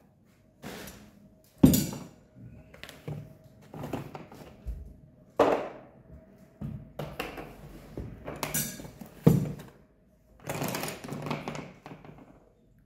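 Handling noise on a desk: irregular knocks as objects are set down, the sharpest about two seconds in and again about nine seconds in, with rustling of paper and a book being handled.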